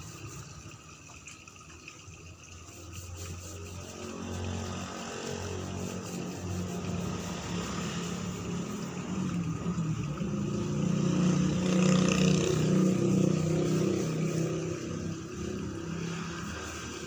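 An engine running, rising in loudness to a peak about twelve seconds in and then fading away.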